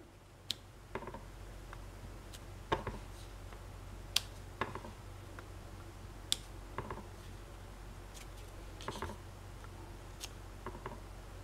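Faint, scattered taps and clicks of a clear acrylic stamp block being pressed down and shifted on a card on a tabletop, about a dozen in all, over a low steady hum.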